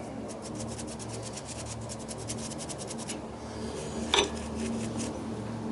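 Wood lathe running with something rubbing against the spinning wooden egg cup: a rapid, even scratching of about ten strokes a second that stops about three seconds in. A single click follows about four seconds in.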